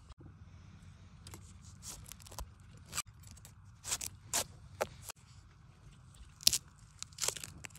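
A metal blade digging into damp soil and bamboo leaf litter around a bamboo shoot, with irregular short crunches and scrapes of steel in earth.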